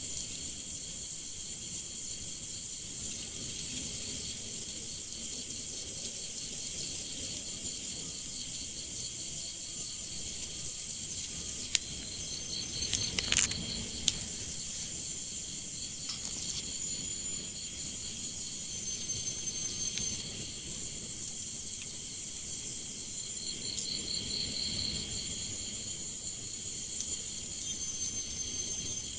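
Insects chirping in a steady high-pitched chorus with a pulsing trill running through it, and a few brief clicks about twelve to fourteen seconds in.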